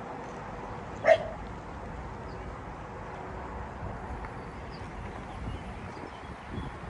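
A dog barks once, a single sharp bark about a second in, over steady outdoor rumble.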